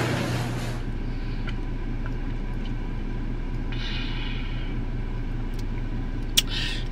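Car engine idling, a steady low hum heard inside the cabin. The noise of the garage door going up stops about a second in. Around the middle there is a short sip through a water bottle's straw, and a single click comes near the end.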